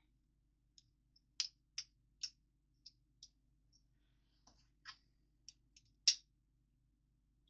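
Plastic Lego pieces clicking and tapping as they are handled and fitted together: about a dozen sharp, irregular clicks, the loudest about six seconds in.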